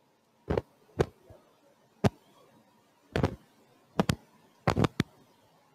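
A series of about six short, sharp clicks and knocks at irregular intervals, with two close pairs near the end.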